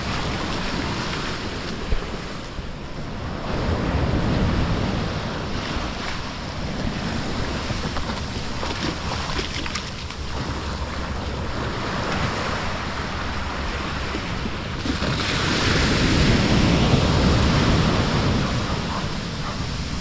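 Small Pacific Ocean waves washing up the sand at the water's edge, the foamy backwash hissing, swelling louder about four seconds in and again for a few seconds near the end. A single brief knock about two seconds in.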